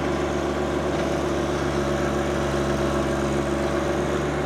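John Deere 1025R compact tractor's three-cylinder diesel engine running steadily while the front loader carries a big rock.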